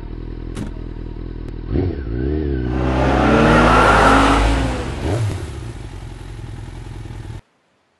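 Motorcycle engine idling, with two short clicks, then revved up and down about two seconds in and pulling away past close by, loudest around the fourth second, then fading before the sound cuts off suddenly near the end.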